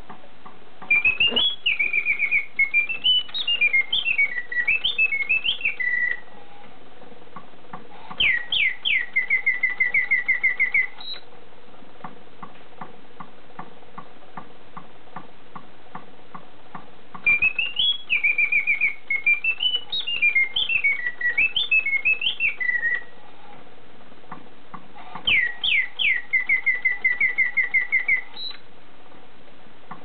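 Clockwork singing bird automaton in a brass cage whistling its song: a warble of rising and falling notes, then a few quick falling sweeps into a fast trill, the whole song played twice. The clockwork mechanism ticks steadily throughout and can be heard alone between the songs.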